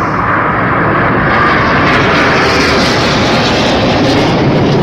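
BAE Hawk T1 jet trainers flying past overhead, their Adour turbofan engines giving a loud, steady jet roar.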